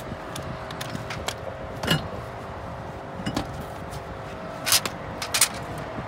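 A handful of short metallic clanks and knocks as a car's wheel is pulled off its hub and a cordless impact wrench and loose parts are handled and set down, the loudest two near the end, over a steady faint hum.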